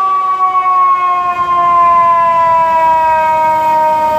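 FDNY fire engine's siren sounding one long, loud wail that slowly falls in pitch.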